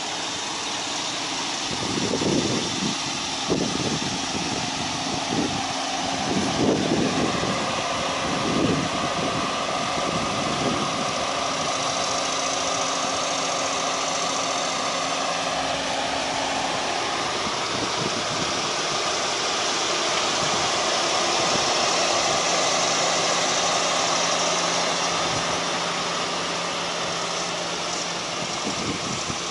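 Audi A4 2.0T turbocharged four-cylinder engine idling steadily, with a few soft low thumps in the first several seconds.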